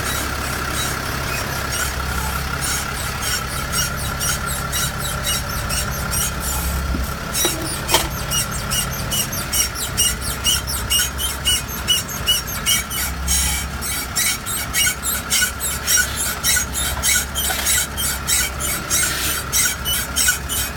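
Mercedes Vito V6 engine running with a steady high-pitched squeal and, from about ten seconds in, a rhythmic chirping squeak about twice a second, with a single sharp click about eight seconds in. This is the suspect noise whose origin the owner does not know.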